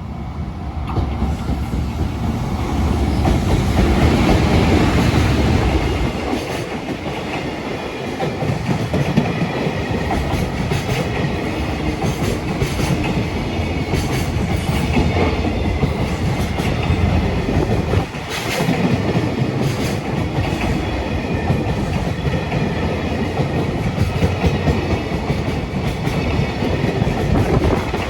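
Freight train of container flatcars hauled by a JR Freight EF210 electric locomotive rolling past, with a steady heavy rumble and wheels clicking and clattering over rail joints. It is loudest from about three to six seconds in.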